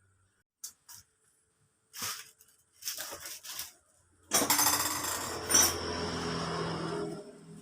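Metal tools and engine parts clinking and scraping, then about three seconds of loud continuous metallic rattling starting about halfway in.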